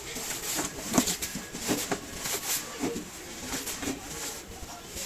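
Irregular scraping and rubbing as carbon deposits are cleaned out of a washing machine drum's worn rear bearing housing, with a sharp knock about a second in.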